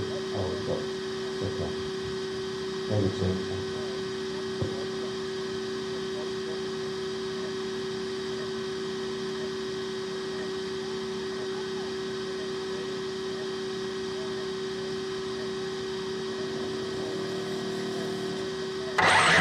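Steady electrical hum, with a fainter whine above it, picked up by the onboard camera of a stationary electric 4wd RC buggy, with faint voices in the first few seconds. Just before the end the buggy launches and a sudden loud rush of noise takes over.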